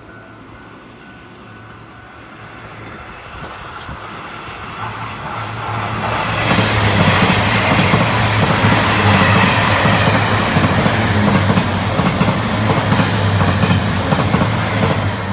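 Taiwan Railway Tze-Chiang diesel multiple unit approaching and passing close at speed: a steady low diesel drone with the rush and clatter of wheels on rail, growing over the first six seconds and then staying loud as the carriages go by.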